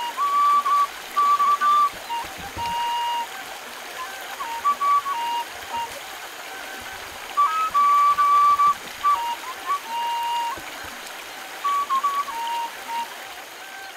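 Shallow stream running over rocks, with a slow melody of long, pure high notes stepping between a few pitches over it.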